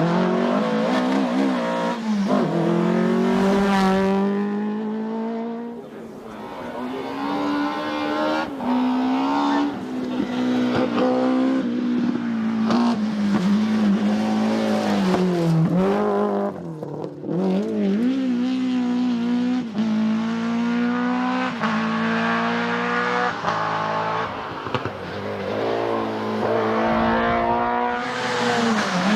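Rally cars at full throttle on a stage, the engine note climbing and dropping sharply again and again with each gear change.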